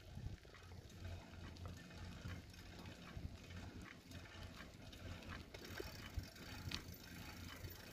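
Quiet outdoor ambience: a faint, steady low hum with soft, regular footsteps of someone walking on pavement.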